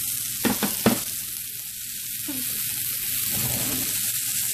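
Oil sizzling steadily in a frying pan, with two or three sharp clicks a little under a second in.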